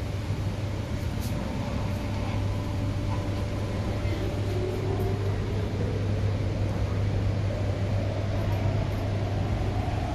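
MTR K-Train electric multiple unit heard from inside the carriage as it pulls away: a steady low hum and rumble, with the traction motor whine rising steadily in pitch from about four seconds in as the train gathers speed.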